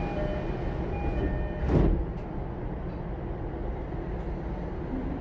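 Passenger doors of a JR East E233-series commuter train car closing: a door-closing chime of steady tones sounds at the start, then the doors shut with one loud thud about two seconds in, followed by a couple of faint clicks and the car's steady low hum.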